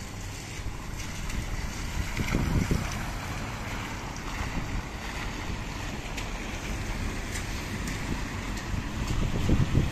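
Wind buffeting the microphone in low rumbling gusts, strongest about two seconds in and again near the end, over a steady hiss of rain and wet street.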